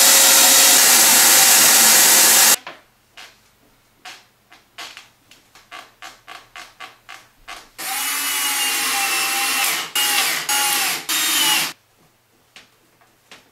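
Shop vacuum running loudly and switched off about two and a half seconds in, followed by a string of light clicks and taps. Then a cordless drill runs in several bursts for about four seconds, its motor pitch wavering and shifting under load.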